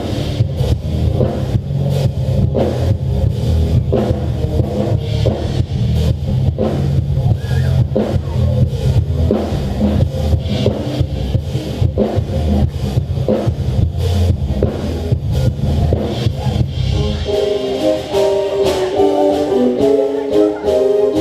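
Band music with drum kit, bass and guitar playing a steady beat; near the end the bass and drums drop away and higher held chords take over.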